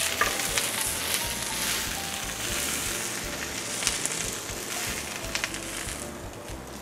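Asian vegetables (bok choy, choi sum, won bok, snow peas, carrots) sizzling in a hot sauté pan with white wine, with a few sharp clicks and scrapes of a spatula against the pan. The sizzle dies away near the end as the pan is taken off the heat and the vegetables are scraped onto a plate.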